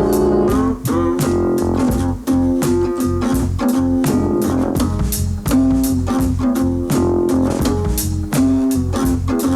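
Instrumental break of an upbeat band song: a guitar line with bending notes over bass guitar and drums keeping a steady beat.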